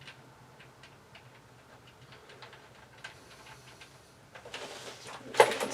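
Light scattered clicks and ticks of small metal parts being handled as bolts are set into a chair's lock mechanism, then a louder stretch of handling noise with one sharp knock near the end.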